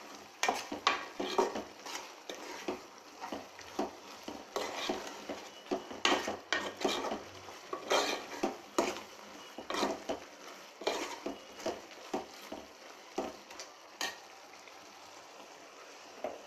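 Metal spoon stirring a thick goat intestine curry in an aluminium pot, with irregular scrapes and clinks against the pot and wet sloshing. The stirring dies away near the end.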